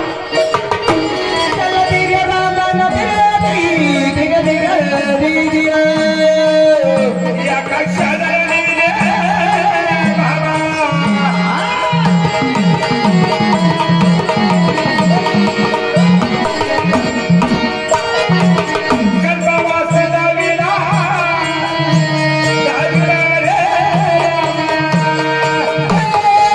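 Indian folk devotional music with a hand drum playing a steady rhythm of low strokes that bend in pitch, under a melody held by an accompanying instrument.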